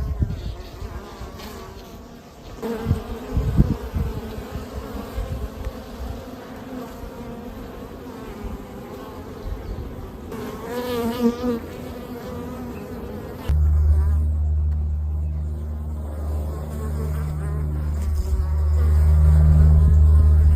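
Swarm of honeybees buzzing around an open hive, a wavering many-toned drone, with a few low knocks in the first few seconds. About two thirds of the way through it cuts to a loud, steady low hum.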